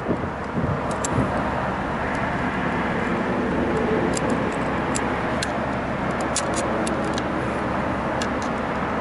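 A steady broad background noise, with a series of light metallic clicks from a hand wire crimping tool working terminals on the control's leads, mostly between about four and seven seconds in.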